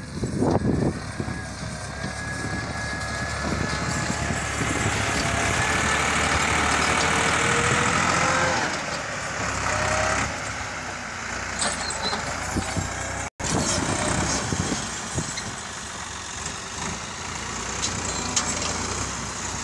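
Massey Ferguson 260 tractor's diesel engine running under load as it drags a tine cultivator through dry soil. A high whine climbs between about two and ten seconds in. The sound cuts out for an instant about two-thirds of the way through.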